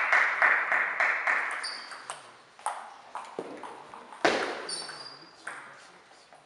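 Table tennis rally in a sports hall: the celluloid-type ball clicking off paddles and table, with one hard, loud forehand hit about four seconds in and brief shoe squeaks on the hall floor. It opens with a fading run of evenly spaced taps, about three a second.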